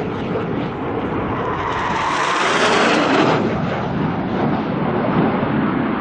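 Loud, continuous jet noise from a low-flying RAF Panavia Tornado's twin RB199 turbofan engines passing through the valley. The high hiss dulls about three seconds in.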